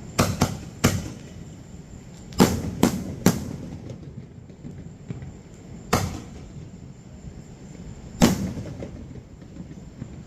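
Aerial fireworks shells going off: about eight sharp bangs in irregular clusters, three in the first second, three more around two and a half to three seconds in, then single bangs near six and eight seconds, each followed by a short echoing tail.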